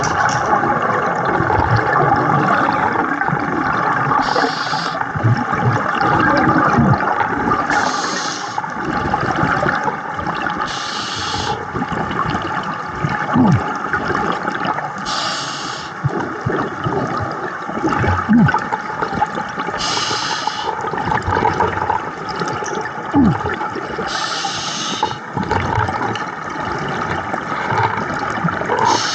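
Underwater water noise around a scuba diver, with the diver's regulator exhaling a burst of bubbles about every four seconds: steady breathing on a dive.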